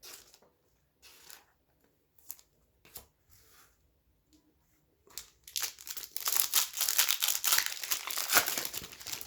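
A few light rustles and taps of card handling, then from about five seconds in a foil trading-card pack wrapper being torn open and crinkled, a dense crackling rustle that lasts to the end.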